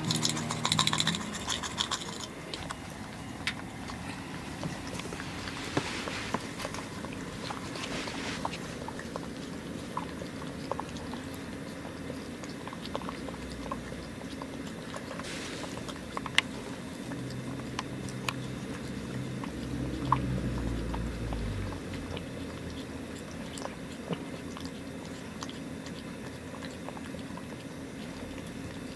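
A cat eating canned wet food from a glass bowl: steady soft chewing with scattered small clicks.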